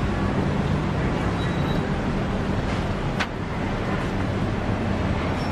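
Steady city street traffic noise with a low engine hum under it, and a single sharp click about three seconds in.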